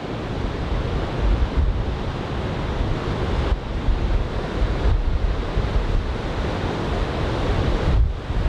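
Ocean surf breaking and washing, heavy from a typhoon swell, with strong wind buffeting the microphone in a low, uneven rumble.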